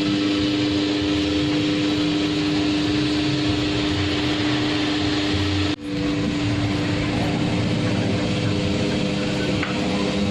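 Electric motor of a kue bidaran dough-forming machine running with a steady hum. The sound cuts out for an instant about six seconds in, then carries on unchanged.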